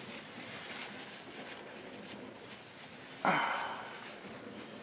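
Faint rubbing of a paper towel spreading milking grease along a terrarium's glass panes and edges. A short, louder breath comes about three seconds in.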